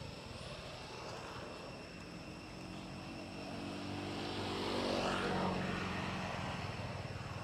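Propeller aircraft passing by, its engine drone building to a peak about five seconds in and then fading.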